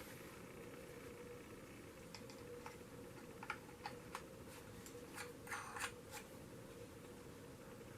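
Faint scattered clicks and light rattles of small plastic camcorder accessories being handled, a handful of them close together near the middle, over a faint steady hum.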